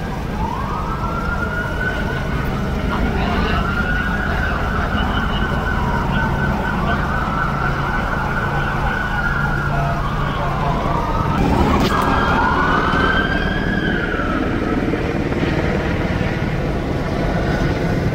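Emergency-vehicle sirens wailing, slowly rising and falling in pitch, with two sirens overlapping near the middle, over a steady low street rumble. One sharp pop sounds about twelve seconds in.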